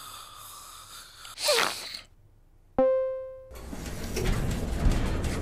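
Cartoon sound effects: a short, sneeze-like vocal burst with a falling pitch about a second and a half in, then a moment of silence. A single bell-like pitched note strikes and fades, followed by a dense rumbling noise.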